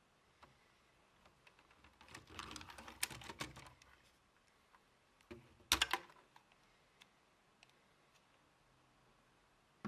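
Small plastic clicks and rattles of Lego parts being handled and worked: a dense run of clicks from about two to four seconds in, then a sharp double click just before six seconds, with a few faint ticks in between.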